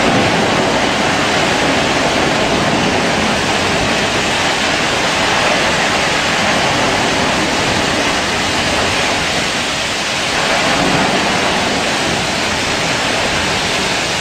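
Steady, loud rushing noise of a drilling rig blowout: the well flowing out of control while burning at the rig floor.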